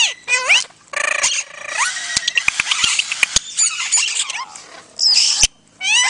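Pet parrots, an Indian ringneck parakeet and a quaker parrot, chattering: spells of squeaky, rising and falling calls mixed with sharp clicks, with a short pause about a second in and another near the end.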